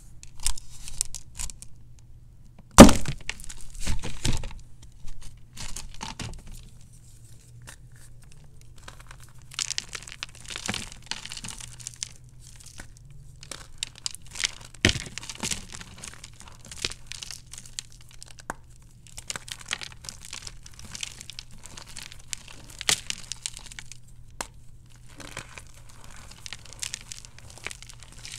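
A molded block of hard, dry gym chalk broken by hand: one loud crack about three seconds in, then repeated crunching and crumbling in bursts as it is crushed into powder, with another sharp snap midway. The chalk is very crunchy, almost too hard.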